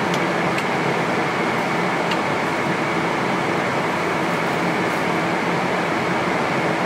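Steady cabin noise inside a Boeing 777-300ER in flight: the even rush of airflow and engines, with a few faint ticks.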